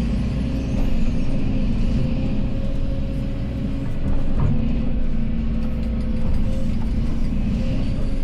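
Excavator's diesel engine running steadily, deep and even, with a few faint knocks.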